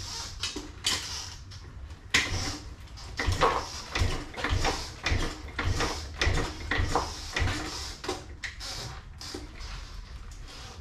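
Irregular clunks, knocks and rattles from a motorcycle being handled as it is readied for kick-starting, the engine not yet running.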